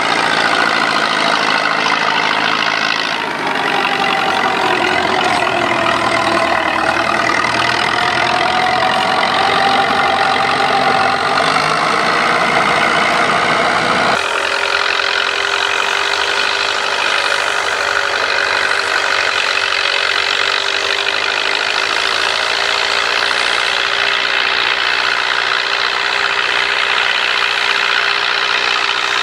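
Massey Ferguson 185 tractor's four-cylinder diesel engine running steadily under load as it pulls a rotary tiller through dry soil. The engine tone changes abruptly twice, about three and fourteen seconds in.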